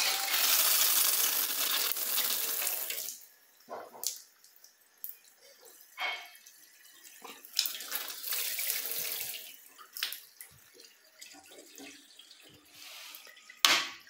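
Water running from a bath-and-shower mixer tap through a handheld shower head. It is a loud steady rush for about three seconds, then comes in shorter, quieter spurts. A sharp click comes near the end.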